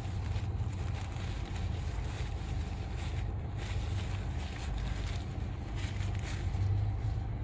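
Steady low hum of an idling vehicle engine with an even background hiss.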